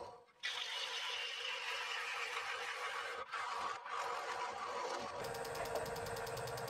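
A lathe gouge cutting the face of a wooden bowl blank spinning on a Nova Neptune lathe: a steady hissing shave over a steady hum, dipping briefly twice a little past the middle. Near the end the tool is off the wood and a rapid, even ticking takes over.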